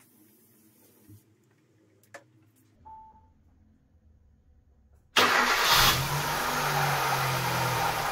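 A short beep about three seconds in, then a car's DOHC 16-valve four-cylinder petrol engine starts suddenly about five seconds in and runs at a steady idle.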